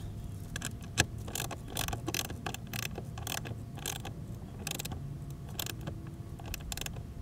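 Irregular small clicks and rattles of hands working wire connections and terminal hardware on a battery-monitor shunt, with one sharper click about a second in.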